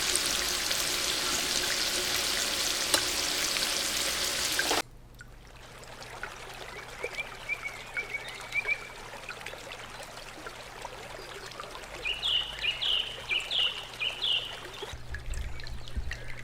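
A loud, steady hissing noise that cuts off suddenly about five seconds in. Quieter background follows, with small birds chirping, in a few short runs.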